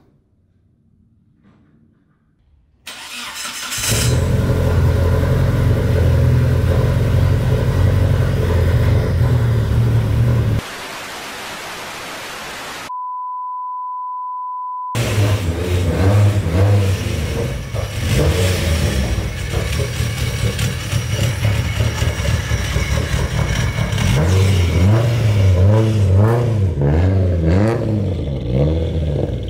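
Mitsubishi Lancer Evolution 6.5 Tommi Mäkinen Edition's turbocharged four-cylinder catching suddenly about three seconds in and running loud. Midway, a steady test-tone beep replaces it for about two seconds. Then the engine runs again and revs in a few rising and falling sweeps near the end as the car pulls away.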